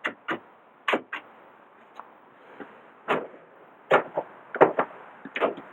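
2009 Ford Ranger's driver-side door latch and power door lock actuators clicking and clunking as the locks are tested: about a dozen short, sharp clicks, several in quick pairs. The locks respond normally, with no self-locking.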